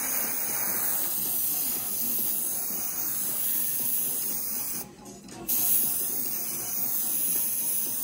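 Iwata Neo airbrush spraying paint: a steady hiss of compressed air that stops for about half a second around five seconds in, then starts again.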